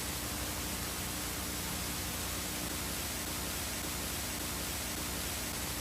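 Steady static hiss, even and unbroken, with a faint steady hum tone under it.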